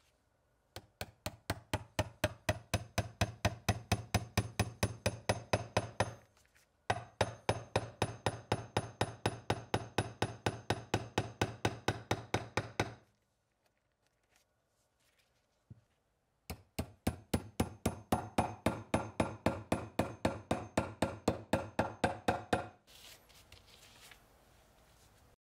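Pfaff sewing machine stitching thick leather for a chair sling: the motor hums under a fast, even clicking of the needle, about five stitches a second. It runs in three bursts of about six seconds each, with a short stop and then a longer one between them.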